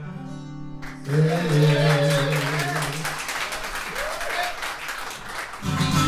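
A final acoustic guitar chord rings at the close of a live song. From about a second in, an audience starts clapping, and another strummed chord sounds near the end.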